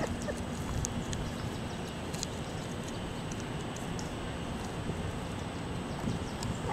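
Steady low outdoor background rumble with a few faint scattered clicks.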